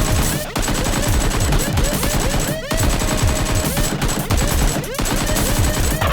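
Rapid gunfire sound effects: dense, overlapping automatic fire in a shootout.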